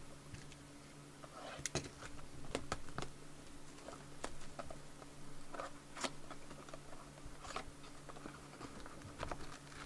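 Cellophane shrink wrap being torn and crinkled off a cardboard trading-card box, with irregular crackles and sharp snaps.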